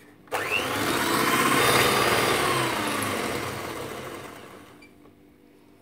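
Electric hand mixer running with its beaters in a bowl of chantilly cream powder and peach syrup, whipping it into cream. The motor starts about a third of a second in with a short rising whine, then fades away over the last couple of seconds.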